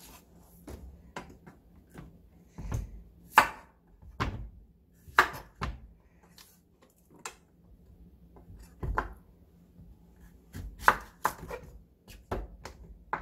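Kitchen knife chopping on a wooden cutting board: single knocks at uneven intervals, a few of them sharper and louder, as an onion and then a Korean zucchini are sliced.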